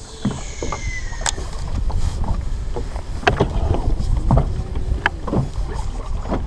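Lake water lapping against a boat hull, with wind rumbling on the microphone and a few sharp ticks and knocks. A faint falling whistle in the first second.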